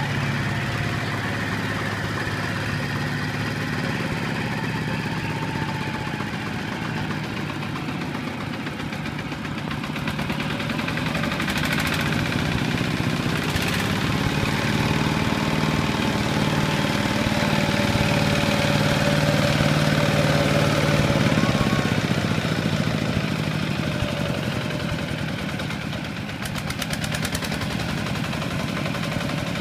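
Kubota RT120 walking tractor's single-cylinder diesel engine running under load while it hauls a loaded trailer bogged in mud. The revs rise about halfway through, stay high for several seconds, then drop back near the end.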